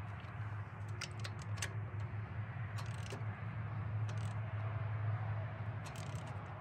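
Metal ratchet clicks from a digital torque wrench, in short runs about four times, as it snugs down the rocker cover bolts. Under them runs a steady low hum.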